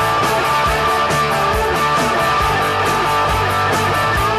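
Punk rock backing music: electric guitar over a steady drum beat, with no singing.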